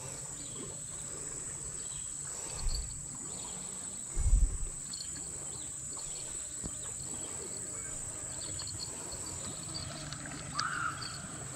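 Steady high-pitched drone of insects in riverside undergrowth, with two short low bumps about three and four seconds in and a brief call near the end.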